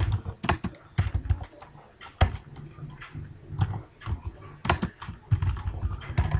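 Typing on a computer keyboard: irregular runs of keystrokes broken by short pauses, with a few harder strokes standing out.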